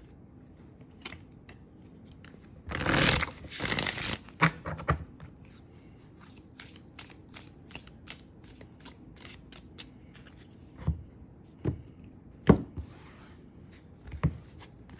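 A tarot deck being shuffled by hand: a loud rustling riffle about three seconds in, then a long run of quick, light card flicks, and a few sharper knocks of cards near the end.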